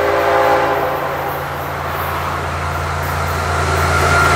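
Diesel-hauled freight train running past at speed. A horn chord fades out in the first half second, leaving a steady low engine drone and the rumble of the train. A higher tone comes in near the end.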